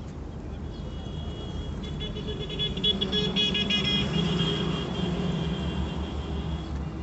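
A vehicle horn sounding for several seconds, starting about a second in: a high-pitched chord of several tones that pulses rapidly in the middle, over the steady low rumble of road traffic.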